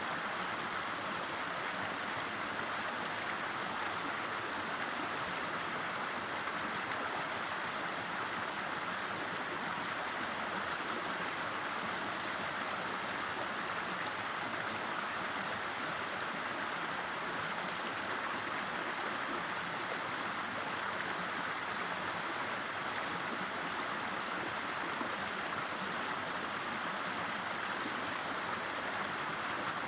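River water rushing and burbling over rocks in a steady, unbroken flow.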